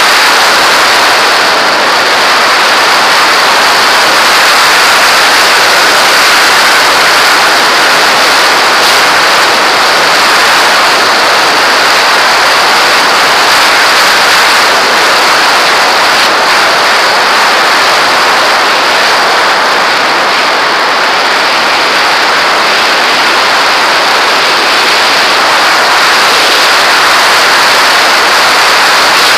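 Steady, loud rush of wind over the microphone of a camera mounted on a glider in flight.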